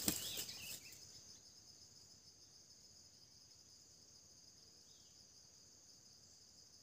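A brief burst of wing-flapping from a junglefowl rooster right at the start, fading within a second, then a faint, steady high-pitched chirring of forest insects.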